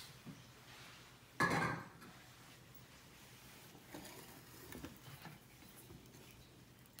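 Metal food cans being handled on a granite countertop. There is a click at the start, a short clatter about a second and a half in, then softer knocks as cans are picked up.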